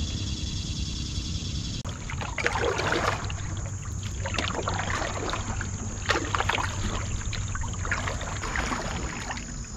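Water around a canoe: irregular swishing and splashing against the hull over a steady low rumble.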